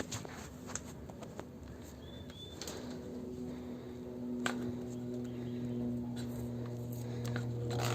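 Faint small clicks and rustles of hands working at a taped wire splice, pulling the stuck tape off the electrical wire. A low steady hum comes in about three seconds in and grows a little louder.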